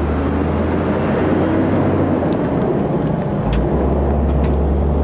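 A multi-trailer road train with ore trailers rolling past, a steady low rumble of tyres and running gear on the road with a few faint ticks.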